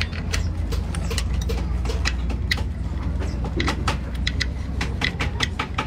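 Diesel engine running with a steady low rumble, with irregular sharp clicks and knocks over it.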